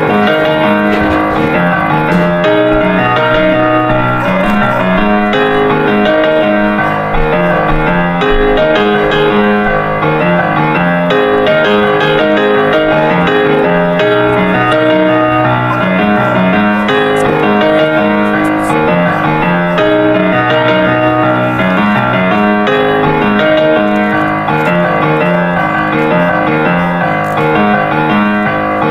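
Background piano music: a continuous run of notes at an even level, with no speech over it.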